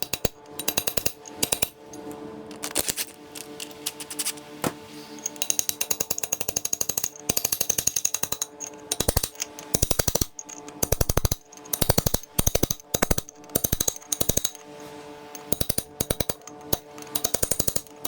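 Ratchet wrench clicking in quick runs of sharp clicks while bolts on the differential are being loosened, over background music.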